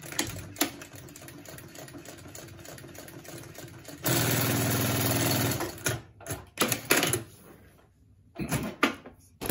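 Consew 2206RB direct-drive walking-foot lockstitch machine sewing through heavy upholstery material, running steadily at a moderate stitching speed. About four seconds in it gets much louder for roughly two seconds, then stops, followed by a series of sharp clicks and knocks.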